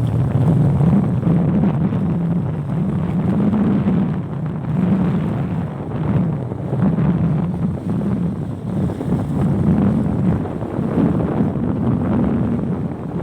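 A boat's motor running steadily, with wind buffeting the microphone.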